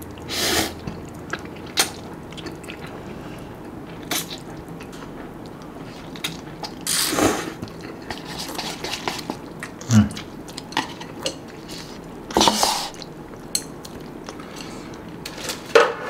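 Close-up eating of instant noodles: wet mouth sounds and chewing, with three loud, drawn-in slurps of noodles and small clicks of chopsticks and a spoon.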